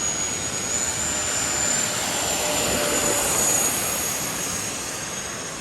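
Radio-controlled model airplane's electric motor whining in flight over a loud rush of air noise; the high whine climbs slightly at first, then holds steady.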